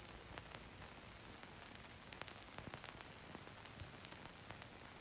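Near silence: a faint hiss with scattered soft clicks.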